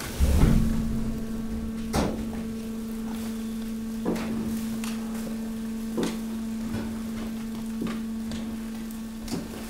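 Hydraulic garbage press running: a steady hum from its hydraulic drive starts with a thud about half a second in while the ram pushes the load of household trash, with sharp knocks about every two seconds.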